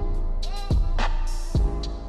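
Background music with a heavy bass line and a drum beat, with a kick hit about every three-quarters of a second.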